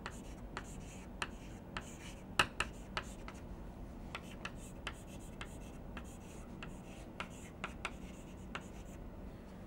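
Chalk on a blackboard as words are written: a faint string of short, sharp taps and scratches, irregularly spaced, the loudest about two and a half seconds in.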